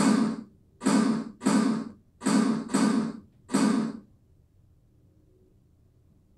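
Intro music's bass hits played through a Samsung TV's built-in speakers: six short, heavy hits in about four seconds. The speakers crackle on each hit because they cannot handle the bass.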